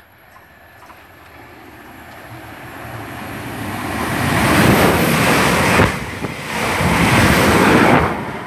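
South Western Railway Class 444 electric multiple unit passing through the station at speed: a rushing noise of wheels and air that grows steadily as it approaches and is loudest for the last few seconds, with a brief dip about six seconds in.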